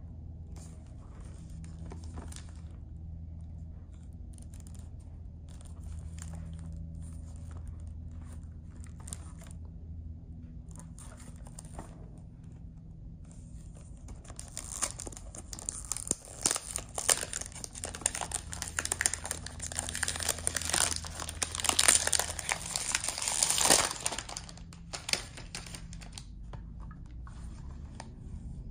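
Cellophane overwrap on a perfume box being picked at with a few light crinkles, then, about 14 s in, torn off and crumpled with loud, dense crinkling for roughly ten seconds before it dies away.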